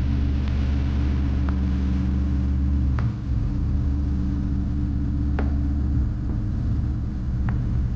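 Bobcat CT4045 compact tractor's engine running steadily while its backhoe works. There are four short sharp knocks spread through it, with a brief dip in the engine sound about three seconds in.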